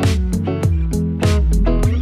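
Background music with a steady drum beat over a bass line and guitar.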